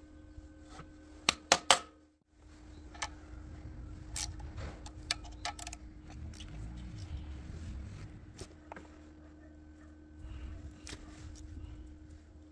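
Scattered sharp metal clicks and taps from hand tools and small parts as a ratchet tightens nuts on an electric motor's terminal block. Three loud clicks come close together about a second and a half in, the sound drops out briefly just after, and lighter irregular clicks and scrapes follow.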